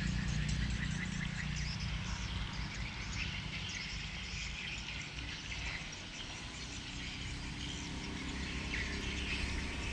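Outdoor background of insects and birds chirping over a steady low rumble.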